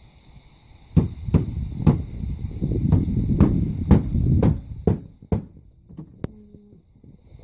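Hammer blows driving short roofing nails through a heavy-gauge sheet-metal panel into the manure spreader's wooden floorboards: about ten sharp strikes at roughly two a second, starting about a second in and stopping a little after five seconds.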